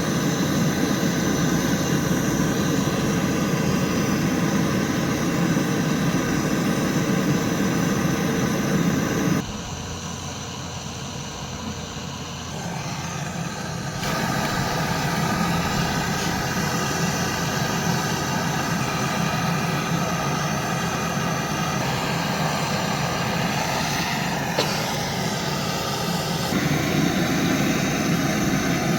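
A motor-driven machine running steadily as a drone with several fixed tones. It drops in level for about five seconds some nine seconds in, then comes back. There is one sharp click near the end.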